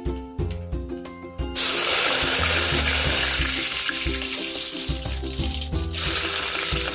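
Hot oil bursts into loud, steady sizzling about a second and a half in, as curry leaves hit a tempering of urad dal and seeds. The sizzle dips briefly near the end and carries on as sliced onions go in.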